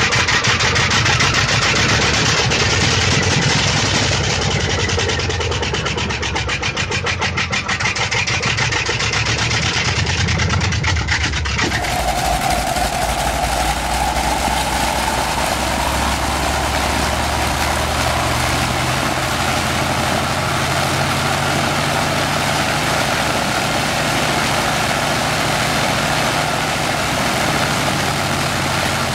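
Bristol Centaurus twin-row 18-cylinder sleeve-valve radial aircraft engine running with its propeller turning, with a rapid rattling beat. After a cut about twelve seconds in, a Centaurus radial in a racing plane runs steadily at low power with a whine on top.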